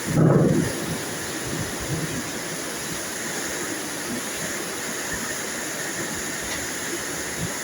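Steady rain hiss, with a brief low rumble of thunder in the first half-second.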